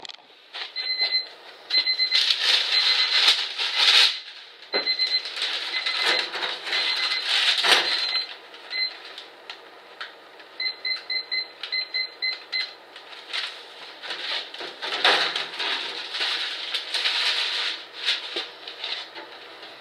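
Digital timer alarm beeping in quick repeated groups, in three spells, signalling that the drying time between paint coats is up. Irregular rustling and clattering handling noise runs underneath.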